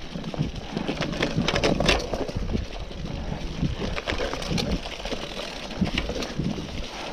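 Cyclocross bike tyres rolling over dry fallen leaves and forest dirt, a continuous crackling crunch with low bumps, and a burst of sharper crackles about two seconds in.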